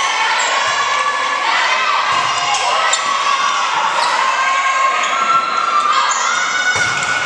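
Indoor volleyball rally on a hardwood gym floor: the ball being struck, sneakers squeaking and a crowd shouting and cheering, echoing around the gymnasium.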